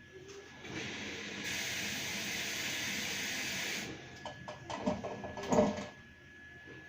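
Samsung WW65K52E69S front-loading washing machine running empty on rinse/spin, making the extraneous noise that appeared during washing. A steady hiss lasts about two and a half seconds, then come several knocks, the loudest about five and a half seconds in.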